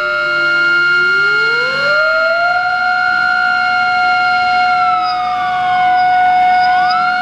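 Two 3D-printed mechanical sirens, each spun by a brushless motor whose speed is set by hand on a servo tester, sounding together as a steady two-note wail. About a second in, one siren's pitch glides up and then holds. Near the end the other's pitch sinks slowly and climbs back quickly.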